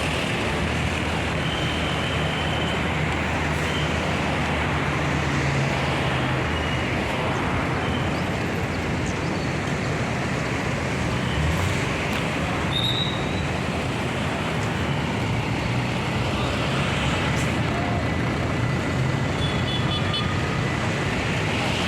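Roadside traffic: the steady low hum of a large diesel engine together with the tyre and engine noise of buses and other vehicles passing on the road.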